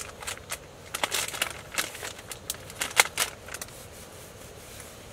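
Plastic tissue packet crinkling and crackling as a tissue is pulled out, in a run of sharp, irregular crackles that die away about three and a half seconds in.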